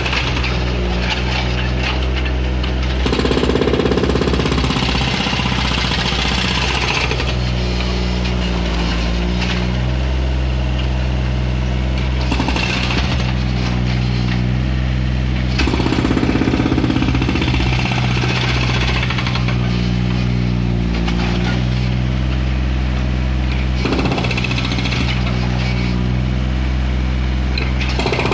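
Takeuchi mini excavator's diesel engine running steadily, growing louder twice with a harder, rattling note, about 3 seconds in and again about 16 seconds in.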